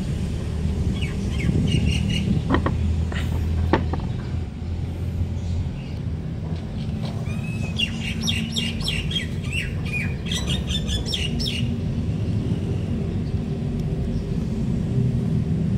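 Small birds chirping: a few short calls, then a quick run of chirps in the middle. A steady low rumble runs underneath. Two sharp clicks come about three seconds in.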